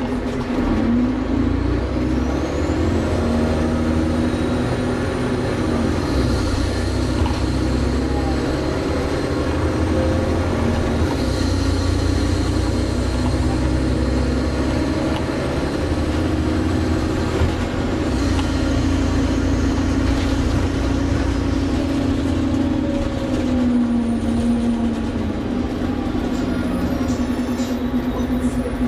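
Volvo Olympian double-decker bus heard from inside the upper deck while on the move: the diesel engine runs without a break, its note rising and falling repeatedly, over a dense low rumble. A high whine curves upward a few seconds in.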